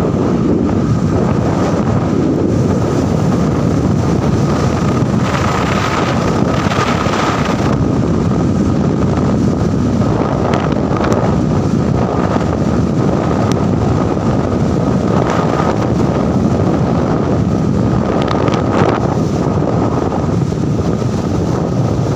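Wind buffeting the microphone of a phone carried on a moving motorbike, over the bike's engine and tyre noise on the road, with a steady thin whine underneath and a few brief stronger gusts.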